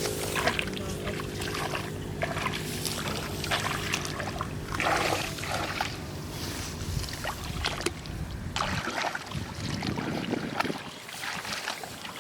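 A small motor hums steadily and fades out about five to eight seconds in, with scattered clicks and knocks throughout.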